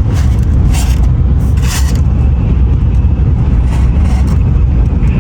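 Steady low rumble of a Shinkansen bullet train running at speed, heard inside the passenger car, with two short noisy sounds about one and two seconds in.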